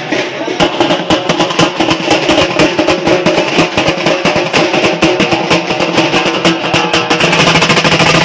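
Music with fast, dense drum beats; about seven seconds in it gets louder and more even.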